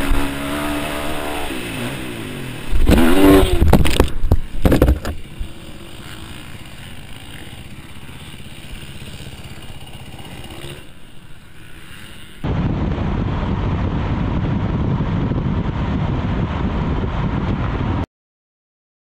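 Motocross dirt bike engine revving on a dirt track, then a crash about three seconds in: a couple of seconds of loud scraping and clattering as the bike goes down, after which it is much quieter. Near the end comes steady road noise from inside a car at highway speed, which cuts off abruptly.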